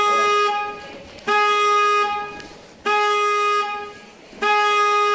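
Loud electronic alert honk from the house's computer system, sounding over and over: a buzzy horn tone about a second long every second and a half, four honks in a row.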